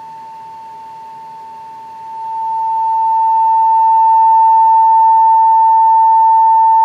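Steady high-pitched test tone from an audio generator, heard through the radio's electrodynamic field-coil speaker. About two seconds in it swells smoothly and grows much louder over a couple of seconds as 31 volts DC is put on the speaker's field coil, a sign that the coil is working.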